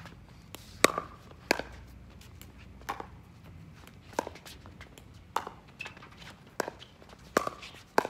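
Pickleball paddles hitting a plastic pickleball back and forth in a fast rally: a string of sharp pops roughly every second, some loud and others fainter.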